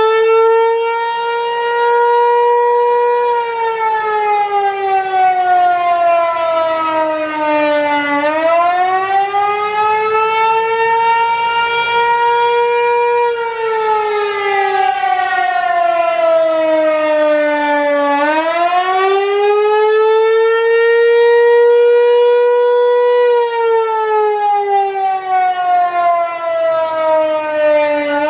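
Federal Signal Equinox outdoor warning siren sounding the attack signal for a monthly test: a loud wailing tone that rises quickly, holds for a few seconds, then slides slowly down, about every ten seconds.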